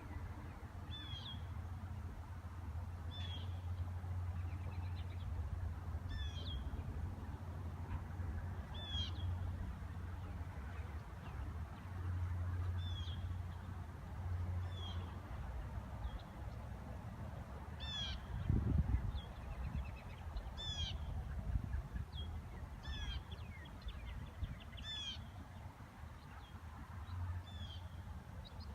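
Birds calling outdoors: short, high, hooked notes repeated every second or two, over a steady low rumble. About two-thirds of the way through there is one loud low thump.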